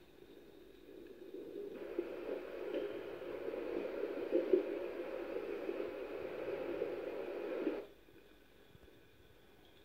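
A muffled, steady rushing noise, heard through a television speaker, that starts about two seconds in and cuts off suddenly near the end.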